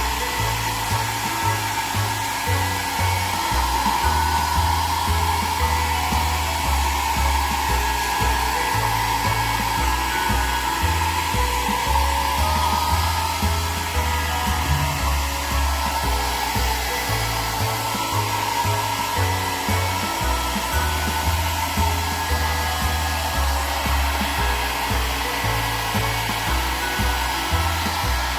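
Hair dryer blowing steadily, drying a pet's coat after its bath.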